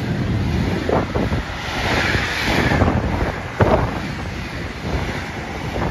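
Freight train of wagons carrying road trailers running past at speed: a steady rush of wheels on rail and air. A knock comes about a second in and a louder one about three and a half seconds in.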